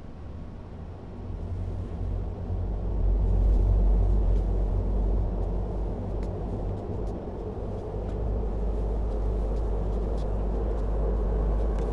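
Low rumbling suspense drone from a horror film's soundtrack. It swells over the first few seconds and then holds steady, with a few faint ticks above it.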